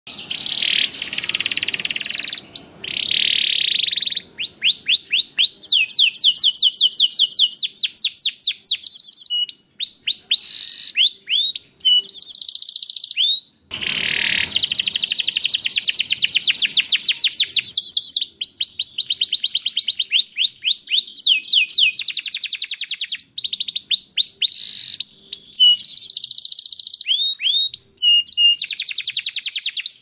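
Domestic canary singing a long, continuous song of fast trills: rapid runs of repeated sweeping notes alternating with buzzy rolls, with only a few brief pauses, the longest at about 13 and a half seconds in.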